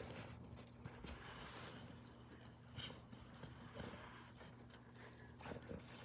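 Faint, irregular crunching and scuffing of snow as a dog rolls on its back in it, over a low steady hum.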